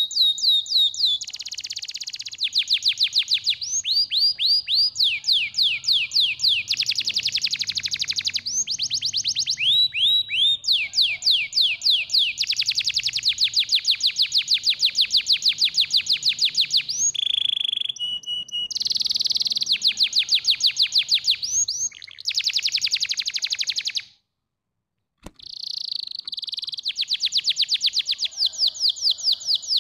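Domestic canary singing a long song of fast trills and rolls, each a rapid run of high repeated notes, changing from one trill type to the next every second or two. About two-thirds of the way through the song stops dead for about a second, a single click sounds, and the trills start again.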